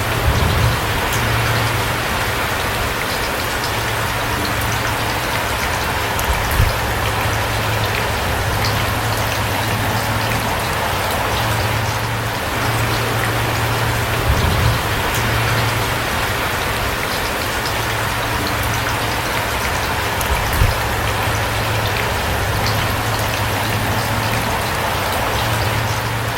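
Steady rain falling, with individual drops ticking through it and a few louder drop hits now and then.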